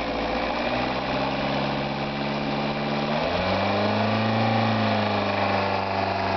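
Freshly rebuilt car engine idling steadily. About three seconds in, its speed picks up slightly and settles at a higher, slightly louder idle.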